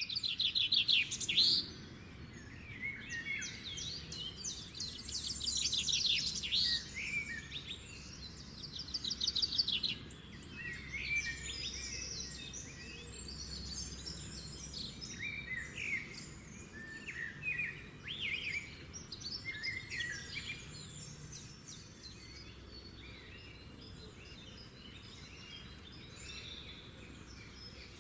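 Songbirds singing: a mix of rapid trills and varied chirps, busiest in the first ten seconds and thinning out after, over a faint low hum.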